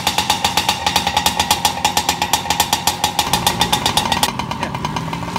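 Small engine idling with a fast, even pulsing beat, about six to eight pulses a second; a deeper hum joins about three seconds in.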